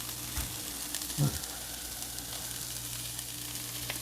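Onions and mushrooms sizzling steadily as they sauté in oil in a frying pan.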